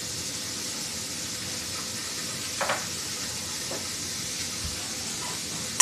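Steady hiss, with a brief soft scrape about two and a half seconds in and a fainter one about a second later.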